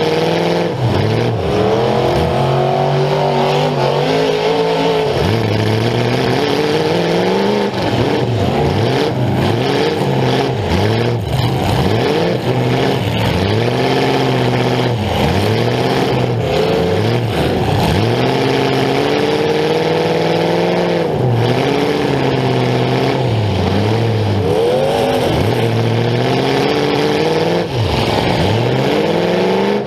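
Demolition derby car's engine blaring through short open exhaust stacks poking up through the hood, close to the microphone, revving up and falling back again and again.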